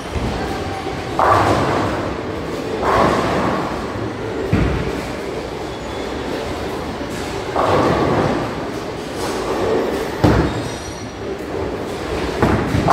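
Bowling alley sounds: bowling balls rolling down the lanes with a steady rumble, heavy thuds of balls landing, and several clattering crashes of pins being knocked down, one of them leaving nine pins down.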